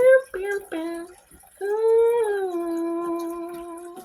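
A woman humming a song melody: a few short notes, then one long note that dips slightly and is held, cut off by a sharp click at the very end.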